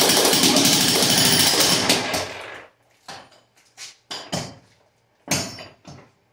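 Corded electric jackhammer breaking a concrete floor, hammering rapidly and steadily, then stopping about two and a half seconds in. The rest holds only a few short bursts, about one a second.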